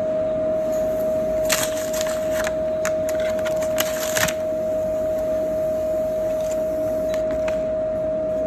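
Blister sealing machine running: a steady high hum over a mechanical noise bed, with a run of sharp clicks and clacks between about one and a half and four seconds in.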